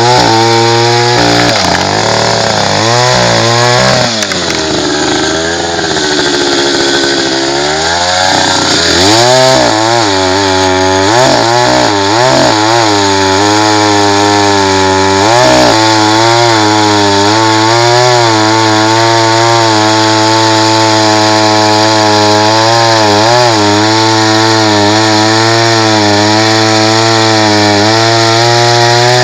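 Taiga two-stroke chainsaw running at high revs and sawing through a tree. The engine note rises and falls as the chain works in the wood, sagging lower for a few seconds in the first third, then holding high with a steady waver.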